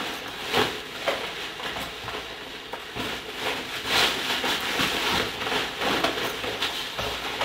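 Rustling and rummaging of a fabric backpack being packed: the cloth crumpling and things shifting inside it in irregular bursts, with a few soft knocks.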